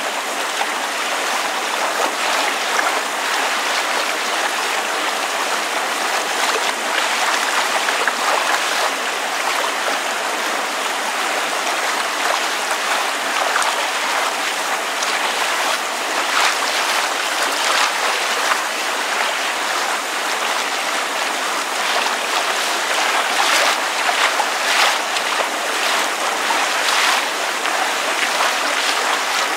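Water lapping and splashing in a steady wash, with rain falling, and many small splashes and drips that grow busier in the second half.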